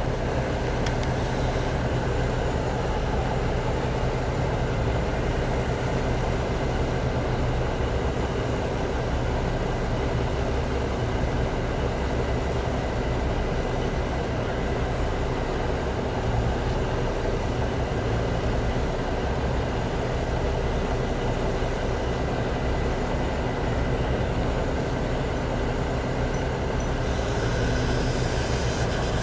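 Mobile crane's diesel engine running steadily with a low, even hum while it holds a concrete panel aloft.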